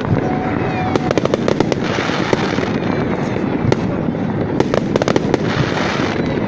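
Fireworks going off: rapid crackling bangs over a continuous dense rumble, with a faint whistle in the first second.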